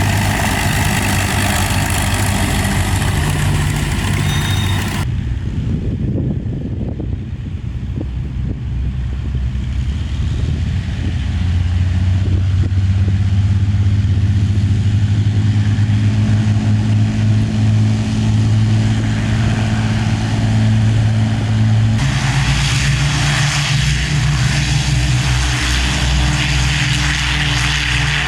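Propeller aircraft engine running with a steady low drone; the sound changes abruptly about five seconds in and again a little after twenty seconds.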